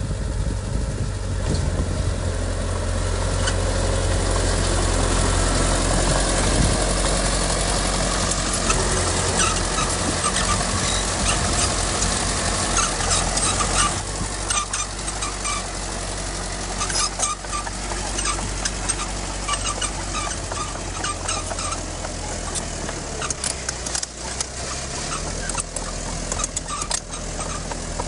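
Heavy diesel earthmoving machine running steadily, with rapid clanking and rattling from about eight seconds in.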